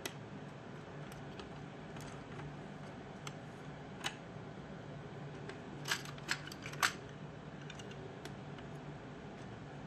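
Sharp plastic clicks from a plastic circular knitting machine being handled as stitches are worked off its pegs with a plastic needle: one at the start, one about four seconds in and three close together around six to seven seconds in, over a faint steady hum.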